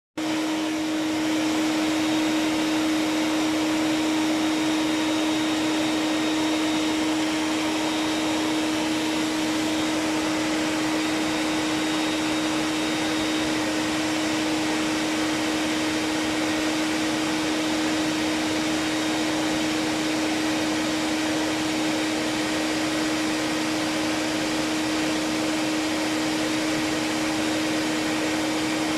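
Vacuum cleaner running steadily: a constant motor hum under a rushing hiss of air, unchanging throughout.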